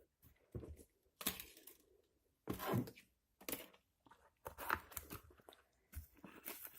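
Packaging being handled during unboxing, rustling and crinkling in short irregular bursts.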